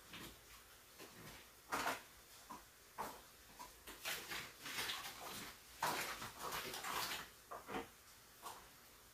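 Baked beans being stirred in a disposable aluminium foil pan, the spoon scraping and crinkling the foil in irregular strokes, with a few louder scrapes about two seconds in and again around four to seven seconds.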